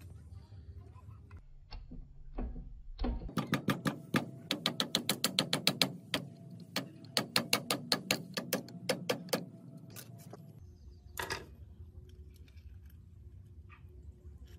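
Quick metal-on-metal clicks, about four a second for some six seconds with a short break, as a steel tool taps and pries at rusted parts inside the head of an old Mitsubishi sewing machine. A single louder scraping stroke follows a little later.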